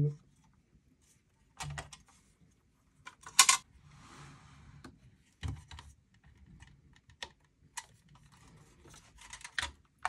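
Scattered clicks and clacks of plastic connectors and metal parts as SATA data and power cables are plugged into a hard drive in a small computer case. The sharpest clack comes about three and a half seconds in and is followed by a brief rustle.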